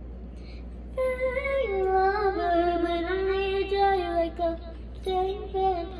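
A young girl singing a long held note without words, starting about a second in and stepping down in pitch, then a shorter sung phrase near the end.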